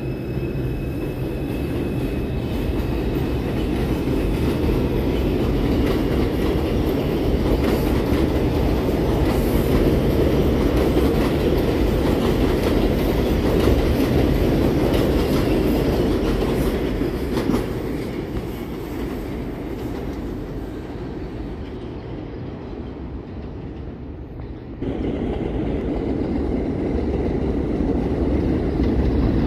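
New York subway R142 trains on an elevated track: a steady wheel-on-rail rumble with clacking over the rail joints as a train runs past. The sound fades away, then about 25 s in it jumps suddenly to another train approaching and growing louder.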